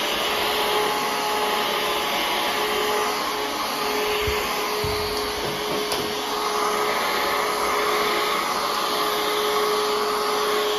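Cordless stick vacuum cleaner running steadily while vacuuming a wooden floor: a rush of air under a steady motor whine.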